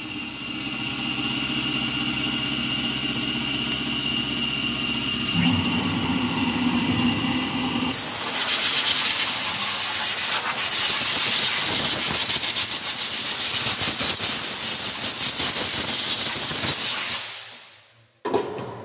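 Milling-machine spindle running with a steady whine, its low tones changing about five seconds in. From about eight seconds a loud, steady hiss of a compressed-air blow gun clearing aluminum chips off the freshly machined part, cutting off about a second before the end.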